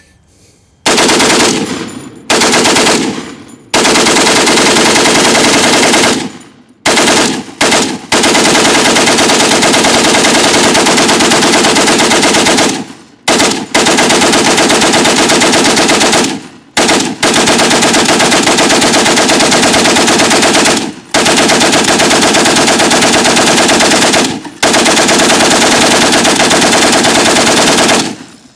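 Russian Maxim M1910 water-cooled machine gun firing fully automatic in about ten bursts, from about a second long to several seconds long, with brief pauses between them. Very loud, rapid, even shots.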